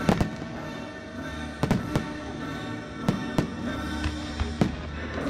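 Aerial firework shells bursting with sharp bangs, about seven in all, several in quick pairs, over steady music.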